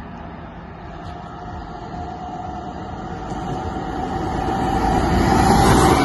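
Heavy truck approaching on a highway and passing close by, its engine and tyre noise building steadily to a peak in the last second as it goes past.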